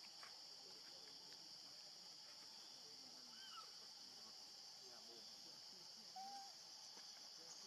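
Faint, steady high-pitched drone of insects (crickets or cicadas), with a few brief faint chirps about three and six seconds in.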